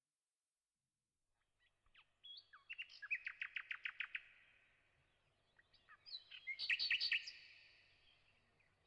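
A songbird singing two phrases, starting about two seconds in, each built around a fast run of repeated high notes.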